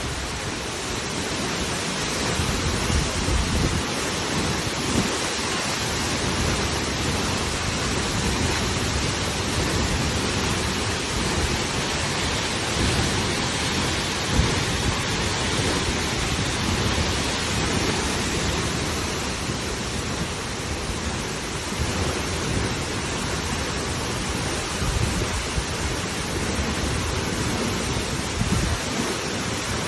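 Steady rush of falling water from a waterfall or fast mountain stream, with uneven low buffeting from wind on the microphone.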